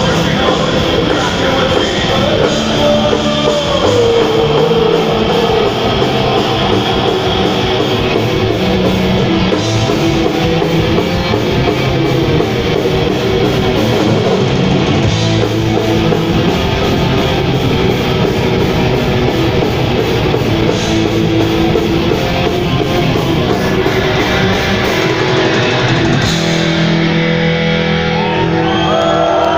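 Heavy metal band playing live, with loud distorted electric guitars and drums. Near the end the drumming stops and the guitars' held notes ring on as the song closes.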